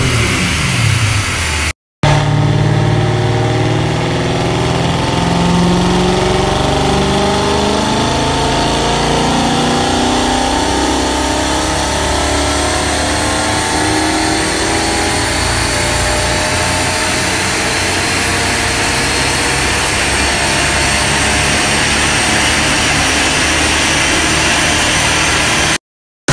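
Mercedes-Benz C63 AMG (W204) 6.2-litre V8 running through a full iPE valvetronic titanium exhaust on an all-wheel dyno. The revs fall off briefly at the start. After a cut, a long pull under load climbs slowly and steadily in pitch for over twenty seconds.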